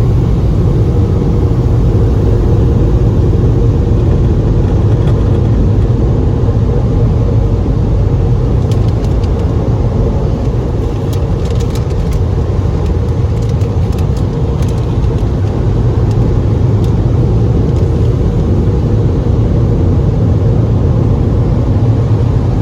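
Car on the move: a steady low rumble of engine and road noise, with a few faint clicks about halfway through.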